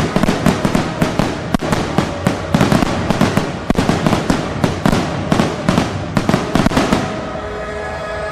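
Fireworks going off in a fast string of sharp bangs and crackles, several a second, that stops about seven seconds in. A held chord of several steady tones sounds under the bangs and is left on its own at the end.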